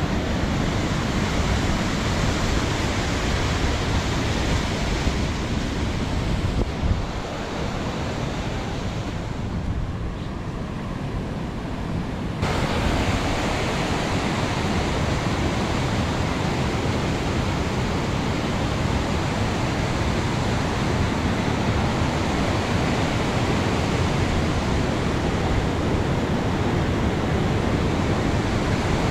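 Steady rushing noise with no engine or voice in it. It thins out for a few seconds about seven seconds in, then comes back abruptly about twelve seconds in.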